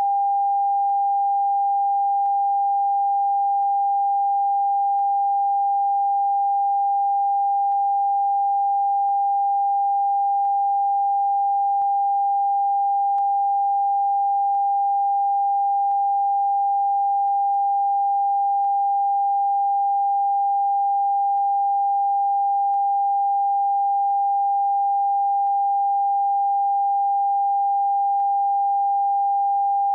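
Steady, unbroken sine-wave test tone of a television end-of-broadcast test card, held at one pitch and level.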